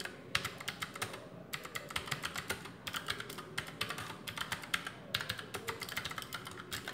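Typing on an Armaggeddon SMK-2C low-profile mechanical keyboard with Otemu switches: a quick, steady stream of key clicks with a few brief pauses.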